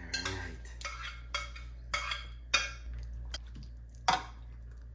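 Pan and kitchen utensils clinking and knocking: about half a dozen sharp knocks at irregular intervals, the loudest about two and a half and four seconds in.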